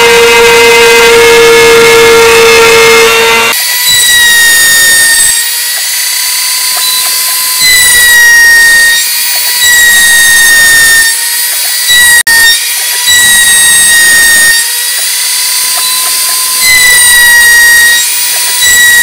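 CNC router spindle running with a 1/4 inch flat spiral bit, cutting into a pine 2x2: a loud, steady high whine. Its pitch shifts about three and a half seconds in, and after that the rougher cutting noise swells and fades every second or two as the bit works through the wood.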